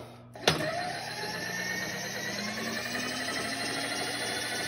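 Table power feed motor on a manual milling machine, driving the table across. It switches on with a click about half a second in, then runs with a steady whine that rises slightly in pitch.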